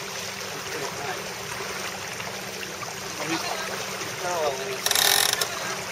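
Steady rush of wind and water aboard a Melges 24 racing sailboat under sail, with a loud, short burst of rushing noise about five seconds in.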